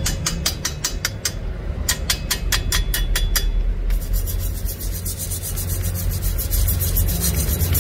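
A rapid run of sharp scraping ticks, about six a second, broken once by a short pause. From about four seconds in, a wire cup brush on an angle grinder scrubs the fresh weld on thin square steel tube: a steady rasp over a low motor hum.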